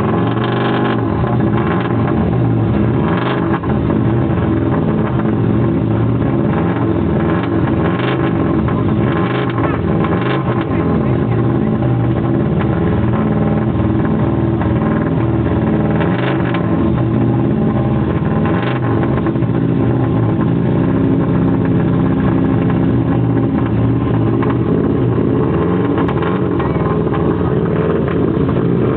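Subaru Impreza WRC rally car's turbocharged flat-four engine running at a steady, loud idle while warming up, with a few short sharp cracks now and then in the first two-thirds.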